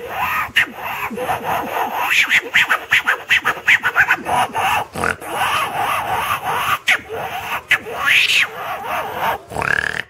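A man imitating monkey and langur calls with his own voice: a quick, unbroken series of short grunting calls, with a higher call that rises and falls near the end.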